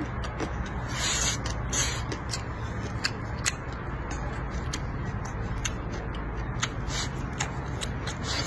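A person eating close to the microphone: chewing and mouth sounds, with many short wet clicks and smacks scattered irregularly, over a steady low hum.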